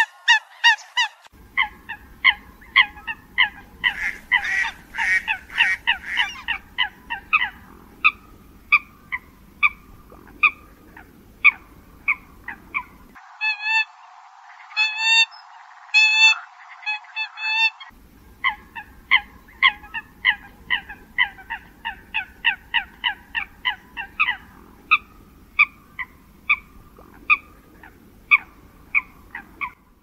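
Eurasian coots calling: a long run of short, sharp calls, several a second, from a flock. A low background noise runs under them, except for a few seconds just past the middle, where the calls are cleaner.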